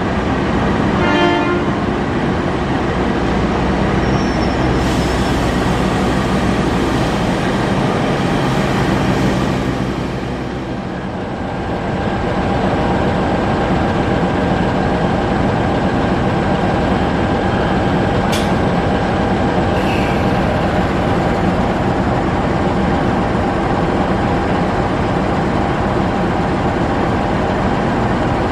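GE CC206 diesel-electric locomotive running past with its train of coaches: a steady diesel engine drone over the rumble of wheels on rail, with a couple of brief sharp sounds about two-thirds of the way through.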